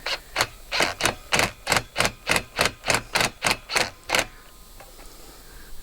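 A hand tool worked in quick, even strokes, about fourteen in a row at roughly three a second, each a short rasping click; they stop about four seconds in.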